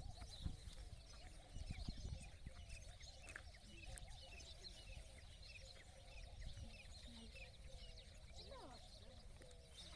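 Many small birds chirping and calling at once in a dawn chorus, with a low rumble on the microphone in the first couple of seconds.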